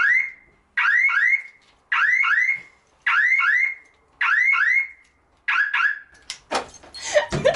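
Car alarm going off on a very sensitive car: six groups of two or three quick rising chirps, about one group a second, then it stops.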